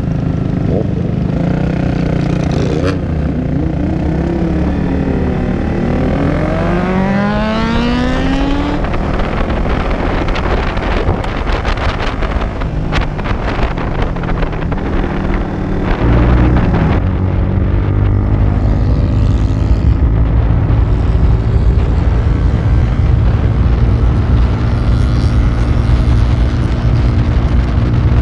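Motorcycle engines idling and revving, with rising and falling engine pitch as the group sets off. From about sixteen seconds in, the onboard Honda 250 motorcycle engine runs louder and steadier at cruising speed.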